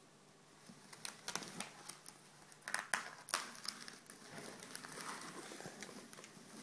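Small wicker basket crackling and creaking under a cat's paws as the cat shifts about in it. There is a scatter of sharp crackles in the first half, followed by a softer rustling.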